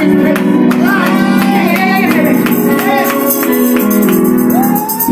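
Gospel music: a woman singing through a microphone over held keyboard chords, with a tambourine keeping a steady beat.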